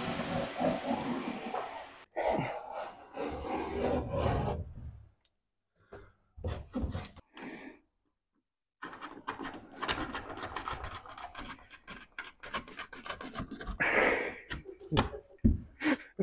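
Plasterboard sheet edge being trimmed by hand with rapid rasping, scraping strokes, taking the too-tight sheet down so it fits against the wall. The strokes come in spells with short pauses between them, and the quickest run is in the second half.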